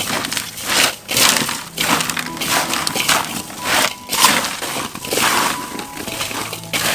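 Strips of sliced mango being tossed and mixed by gloved hands in a large aluminium bowl: repeated crunchy, rustling swishes, about one or two a second.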